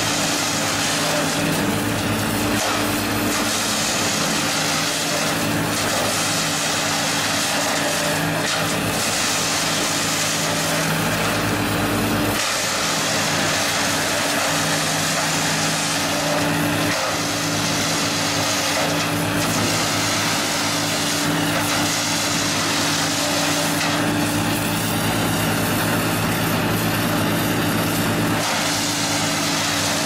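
Diesel engine of a Yulong XP-series mobile wood chipper running steadily under load, with a rushing, crunching noise that swells and fades every few seconds as branches are fed in and chipped and the chips are blown out of the discharge chute.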